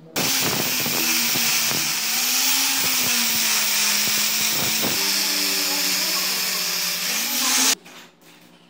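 Power tool with a hook-and-loop sanding disc grinding down a flat aluminium bracket. The motor runs with a loud, steady whine whose pitch sags and recovers as the disc is pressed onto the metal, then stops abruptly near the end.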